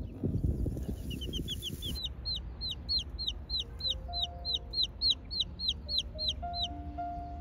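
A chick peeping loudly and rapidly, about five short high peeps a second, starting about a second in and stopping shortly before the end.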